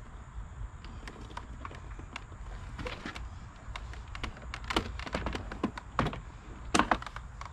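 Scattered plastic clicks and knocks of hands working clips and parts inside a pickup truck's open door, over a steady low rumble. A few louder knocks come in the second half.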